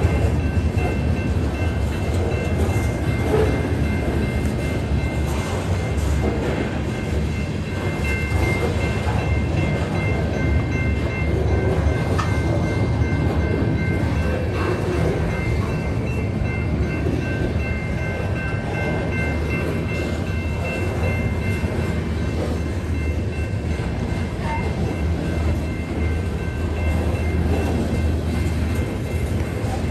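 Covered hopper cars of a BNSF grain train rolling steadily past: an unbroken rumble of steel wheels on the rails, with faint steady high tones above it.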